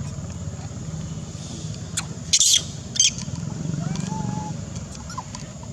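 A motor runs steadily with a low hum, and a few short, sharp high-pitched noises cut in about two to three seconds in.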